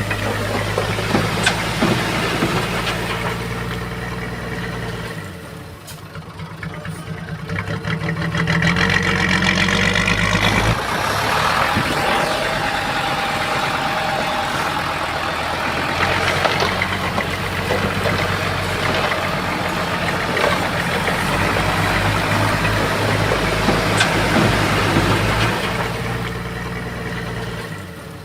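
Bulldozer's diesel engine working under changing load: it eases off about five seconds in, then revs back up and runs hard, with a couple of sharp knocks.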